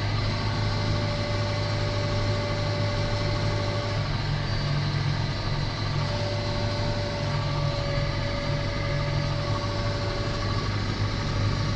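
John Deere tractor engine running steadily while pulling a mounted Kverneland CL Geospread fertiliser spreader across the field, with a thin steady whine on top.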